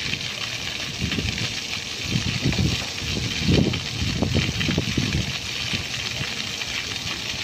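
Splash-fountain water jets shooting up from floor grates and falling onto wet paving, a steady hiss of spray and splashing. Wind gusts buffet the microphone throughout.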